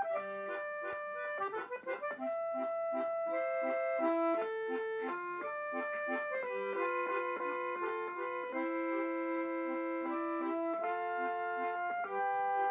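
Accordion music: a tune of held notes over a steady, regularly repeating bass accompaniment.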